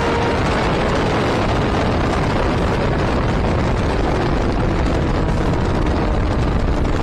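Steady rush of wind on the camera's microphone at road speed, with vehicle engine noise mixed in underneath; a held engine tone drops out about half a second in.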